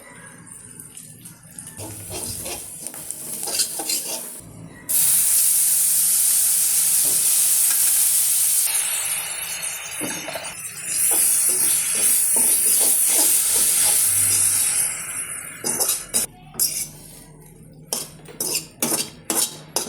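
Food sizzling in a hot frying pan. The sizzle starts suddenly about five seconds in, drops back, then swells again for several seconds. Around it a utensil stirs and scrapes, with sharp knocks against the pan near the end.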